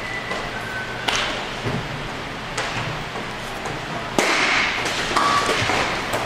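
Sharp knocks of hockey sticks and puck during play, three distinct hits with the loudest about four seconds in.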